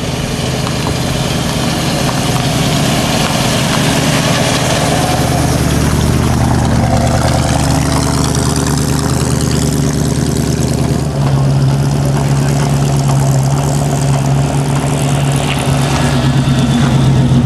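Muscle car V8 engine running at a low, steady idle. Its note steps up in pitch about eleven seconds in and holds there.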